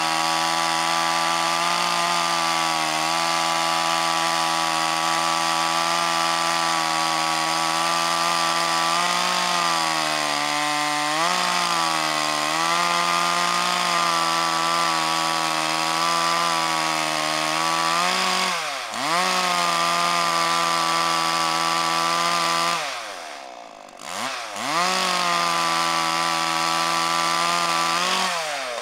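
Chainsaw running at full speed as it cuts through a branch, its pitch sagging and recovering with the load. In the last third the motor twice slows sharply and speeds back up, and it winds down near the end.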